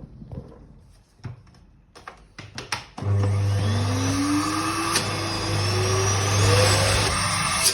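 A few handling clicks, then about three seconds in a Siemens vacuum cleaner is switched on and its newly replaced motor spins up, a steady hum under a whine that rises in pitch as it gets up to speed.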